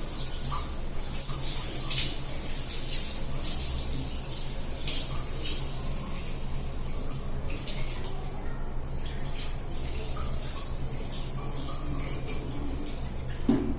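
Tap water running steadily onto hair being washed directly under the faucet, with irregular splashing as the water hits the hair and basin. A brief knock near the end.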